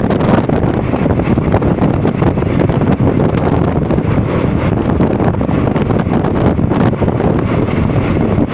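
Heavy wind buffeting on the microphone of a phone held out of a moving passenger train, over the steady running rumble of the coach on the track.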